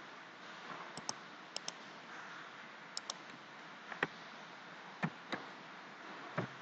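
Computer mouse and keyboard clicks while an equation is entered: about a dozen short sharp clicks, several in quick pairs, over faint steady hiss.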